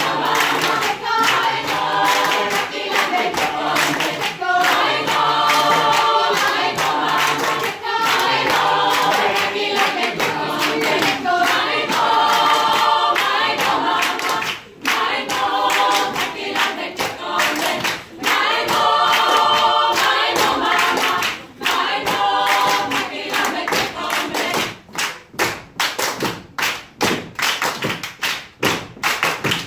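Mixed choir singing a West African song from the Baga people of Guinea a cappella in harmony, to steady rhythmic hand claps. About three quarters of the way in the singing stops and only the regular clapping goes on.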